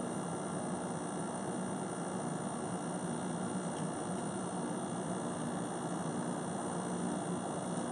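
Hisense 95-pint dehumidifier running with its back cover off: a steady mechanical hum from the unit with its compressor on.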